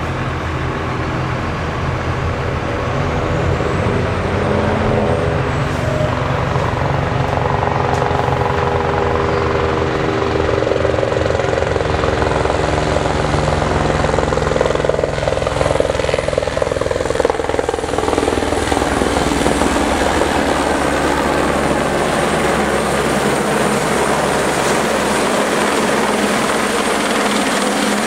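Eurocopter AS350 Écureuil helicopter hovering and manoeuvring low with a load slung on a long line: steady rotor chop and turbine whine, growing a little louder about three seconds in.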